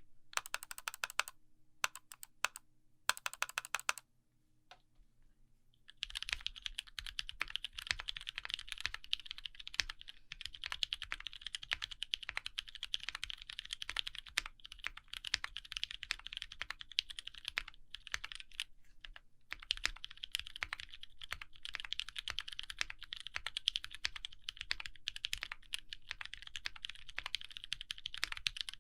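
Typing on a TKC Portico gasket-mount mechanical keyboard with lubed Outemu Sky switches, an FR4 plate and GMK keycaps: rapid clacking keystrokes. A few short bursts of keystrokes in the first four seconds, a short gap, then steady fast typing from about six seconds in, with a brief pause about two-thirds of the way through.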